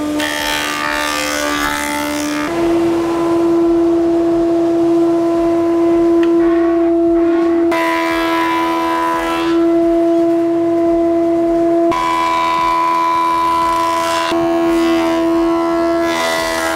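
Woodworking planing machines, a jointer and a thickness planer, running with a dust extractor while spruce planks are planed. A loud, steady droning hum steps up slightly in pitch a couple of seconds in and changes abruptly several more times.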